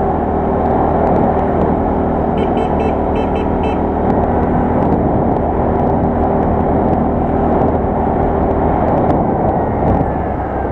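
Quad bike (ATV) engine running steadily while riding, loud and even. A brief run of four or five short high chirps comes about two and a half seconds in.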